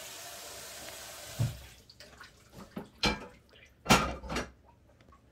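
Steady hiss like a tap running for about the first second and a half, ending in a low thump, followed by a few sharp clinks and knocks of tableware.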